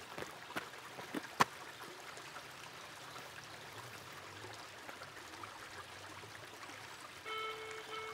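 A stream running steadily, with a few sharp clicks in the first second and a half. Near the end, a mobile phone gives a steady electronic tone for about a second, as a call is being placed.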